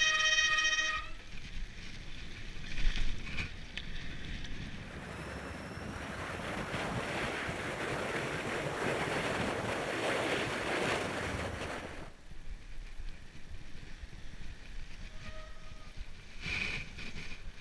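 Wind rushing over the camera microphone and tyres running on asphalt as a mountain bike rolls fast downhill, loudest in the middle. A short, high disc-brake squeal comes at the start and again near the end, with a single clunk about three seconds in.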